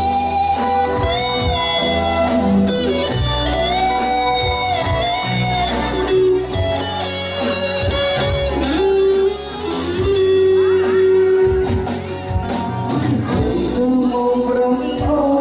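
Band music playing at full level: held notes of a lead melody sliding between pitches over a steady bass line and drum beats.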